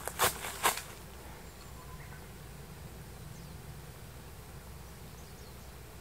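Two footsteps crunching on dry leaf litter along a bamboo-choked trail in the first second, then the walking stops. A faint, steady low buzz remains in the background.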